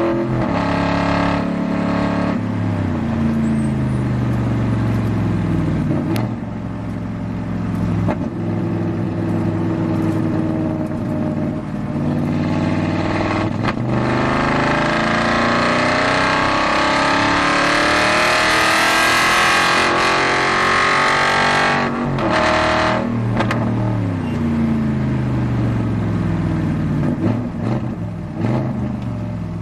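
Aston Martin GT4 race car's V8 heard from the cockpit at racing pace: revs drop in steps on downshifts, then climb again under acceleration. A louder, rougher stretch in the middle.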